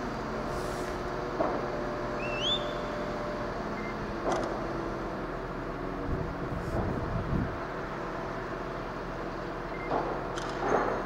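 Large mobile crane's diesel engine running steadily under load as it lifts a signal box, with a few short knocks and a brief rising whistle about two seconds in.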